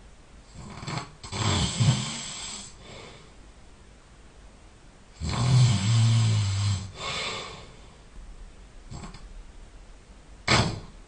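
A sleeping person snoring loudly: two long snores about four seconds apart, each a low rattle that trails off into a breathy hiss. Near the end comes one short, sharp breath sound.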